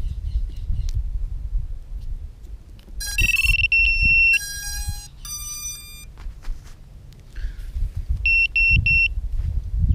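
Electronic beeps from a 5-inch FPV quadcopter's electronics powering up: a long beep about three seconds in, a short run of tones at different pitches, then three short beeps near the end. A low rumble runs underneath.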